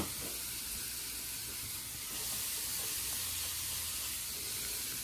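Steady sizzle of food frying in a pan, with a single light click right at the start.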